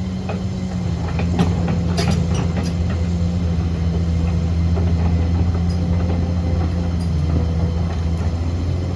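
Diesel engine of a heavy earthmoving machine running steadily, with a few sharp metallic clanks about one to three seconds in.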